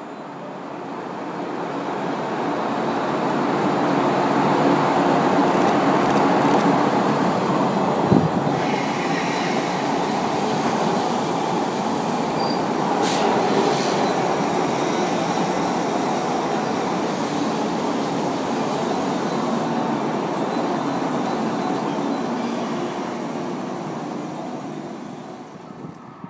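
JR West 201 series electric commuter train running along a station platform: its running noise builds over the first few seconds, holds steady, and fades near the end, with one sharp clank about eight seconds in.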